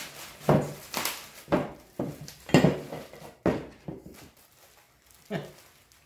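Steel tube of a cyclekart drop axle being handled on a workbench while bubble wrap and plastic are pulled off it: a run of knocks and plastic rustles, about two a second at first, then two more spaced out, fading to quiet near the end.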